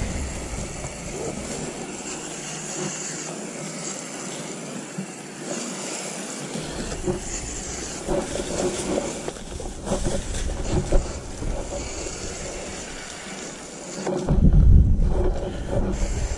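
Hose-end coil-gun sprayer hissing steadily as it sprays foaming cleaner onto a dirty air-conditioner condenser coil and its louvered panels. Wind rumbles on the microphone at the start and again near the end.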